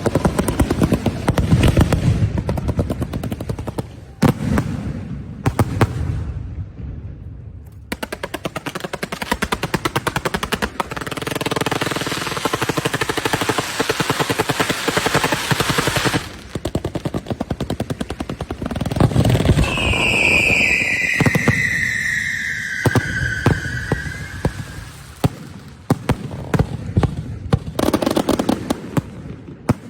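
Firecracker strings and fireworks going off in rapid crackling volleys, broken by short lulls. About twenty seconds in, a loud high whistle falls slowly in pitch over several seconds above the crackling.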